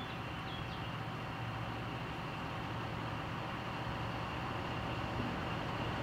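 DR class 112 (V 100) diesel-hydraulic locomotive running slowly toward the listener. Its diesel engine makes a steady low drone that grows gradually louder as it approaches.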